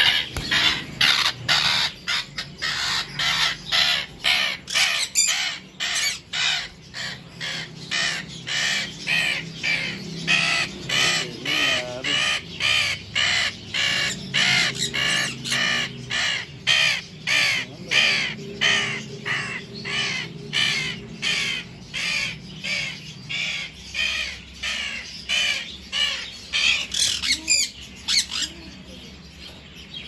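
Alexandrine parakeet (Pahari parrot) squawking harshly over and over, about two calls a second, while held in a hand; the calls stop near the end.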